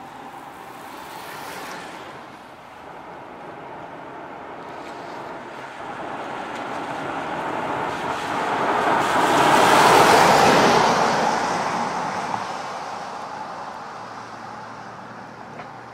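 An SUV driving past on a wet road, its tyres hissing on the wet surface. The hiss swells slowly to a peak about ten seconds in, then fades away.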